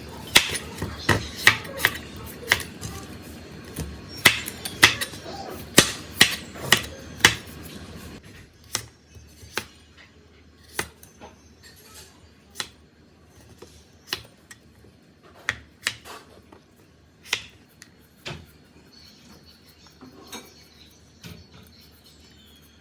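Knife cutting vegetables on a cutting board: irregular sharp taps, quick and frequent at first, then sparser after about eight seconds.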